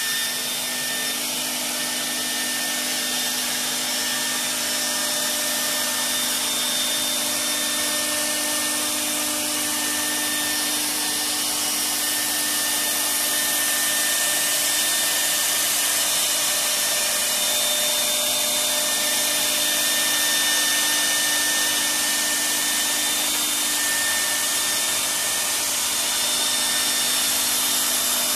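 CNC router spindle running steadily while routing a sheet, a high whine over a continuous rushing hiss.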